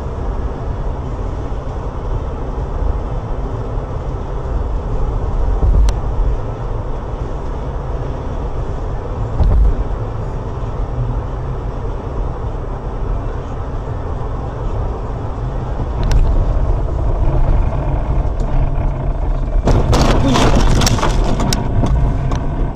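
Steady low road-and-engine rumble of a moving car picked up by a dashcam, with a few single sharp knocks. About twenty seconds in comes a cluster of sharp knocks and rattles lasting under two seconds, the loudest part.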